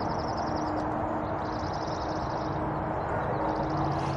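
Outdoor ambience: a steady rushing noise with a faint, even low hum under it, and bouts of a rapid, high-pitched pulsing trill that come and go.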